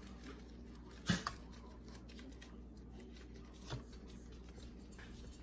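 Kitchen handling noise over faint room tone: a sharp knock about a second in and a softer one a couple of seconds later, as ingredients and utensils are handled for cream cheese frosting.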